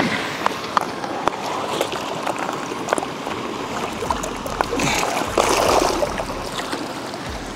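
Lake water splashing and sloshing as a redtail catfish (pirarara) is released back into the water, with scattered clicks and knocks.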